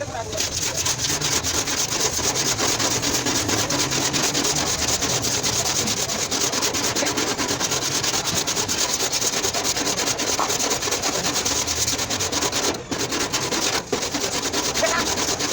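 Steady sanding of a car's damaged fender bodywork: a continuous rasping rub, broken off twice for a moment near the end.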